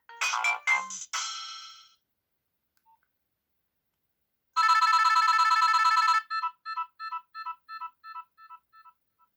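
Nokia 6030 mobile phone ringtones playing through the phone's speaker. A busy electronic melody ends about a second in and rings out. After a pause, a loud, rapid buzzing trill of about a second and a half starts the next tone, which breaks into a run of short beeps, about three a second, that fade away.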